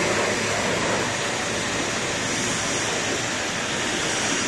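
Steady jet engine noise with a thin high whine, from A-10 Thunderbolt II twin TF34 turbofans running up on the ground; it masks the De Havilland Vampire flying its display.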